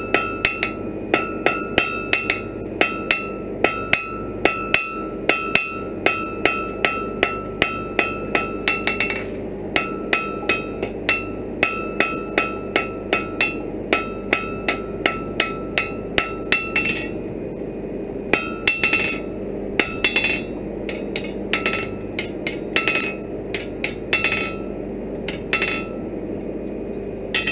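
Hand hammer striking a hot iron bar on a steel anvil, drawing out a fire poker: a steady run of ringing blows, about two to three a second. There is a short break about nine seconds in, and the blows come in sparser groups in the second half, over a steady low hum.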